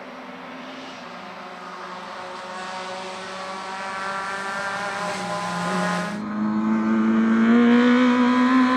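Racing engines of 1300 cc touring cars growing louder as two cars approach on a wet track, over a hiss of tyres on wet tarmac. About six seconds in the sound cuts to a single car, louder, its engine rising steadily in pitch as it accelerates.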